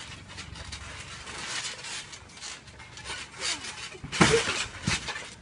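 Scuffing and rustling of two boys wrestling on a trampoline mat, with a loud thud about four seconds in as one is thrown down onto the trampoline and a smaller thud just after.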